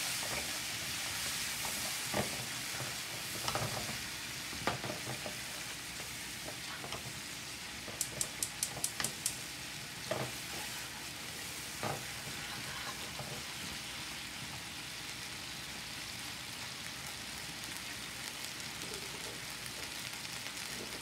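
Butter and soy-sauce sauce sizzling in a frying pan. A wooden spatula stirs it and knocks against the pan now and then during the first half, with a quick run of high ticks about eight seconds in. After that it is mostly a steady sizzle.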